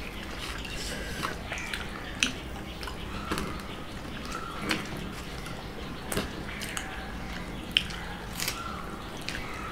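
Hand-eating sounds: fingers tearing thin rumali roti and picking at chicken curry, with chewing and scattered short wet clicks and smacks.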